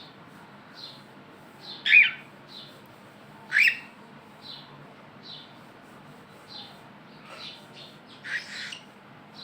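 Cockatiel calling: short soft chirps repeating about once a second, with two loud squawks about two and three and a half seconds in, and a rougher, harsher call near the end.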